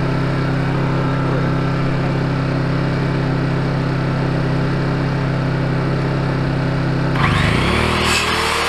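A small engine running with a steady hum. About seven seconds in, a power saw starts up with a rising whine and begins cutting wood, and the engine's note drops as it comes on.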